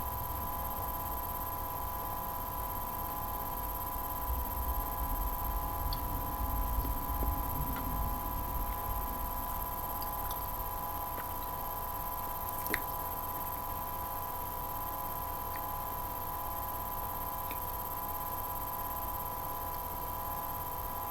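Steady electrical hum made of several fixed tones, with a few faint clicks and a low rumble from about four to nine seconds in.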